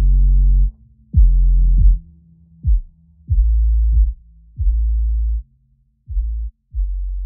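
Electronic outro music with deep bass notes and sharp hits that drop in pitch. The higher layers cut out under a second in, leaving spaced bass hits that get shorter and quieter toward the end.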